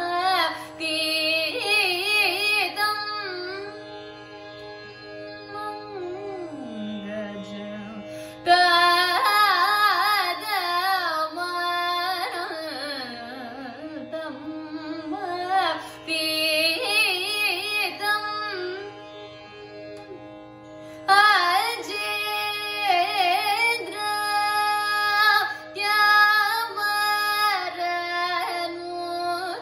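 A woman singing Carnatic classical music, her voice sliding and oscillating through heavily ornamented phrases with short pauses between them, over a steady drone.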